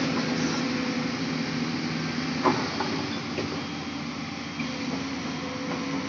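Diesel engine of a JCB tracked excavator running steadily as it loads a dump truck, with a single sharp knock about two and a half seconds in.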